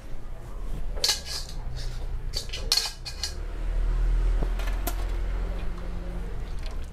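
Metal pots, steel bowls and a mesh strainer clinking and clanking as they are handled, in two bursts of ringing clinks followed later by one sharp click, over a steady low rumble.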